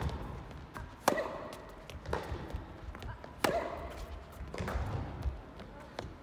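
Tennis ball being struck and bouncing in a rally on an indoor court: sharp hits about once a second, each trailed by a short ring in the hall.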